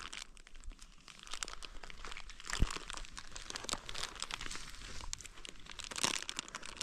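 Plastic sheeting under a meal crinkling and rustling as people reach across it and handle food and dishes, with a single sharp knock about two and a half seconds in.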